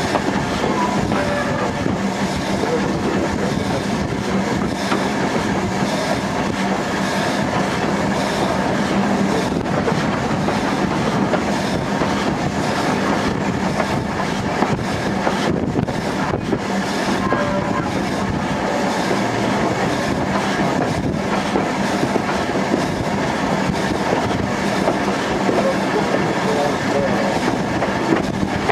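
Steam locomotive running along the line, heard from its own cab side: a steady mix of wheel and running noise with a constant low hum throughout.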